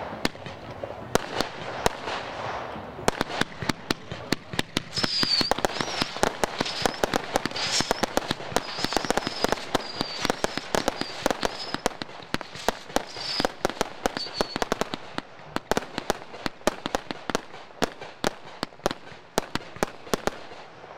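Fireworks display: a rapid, continuous string of sharp bangs and pops from rising shells and aerial bursts. A high, wavering whistle runs through it from about five to fifteen seconds in.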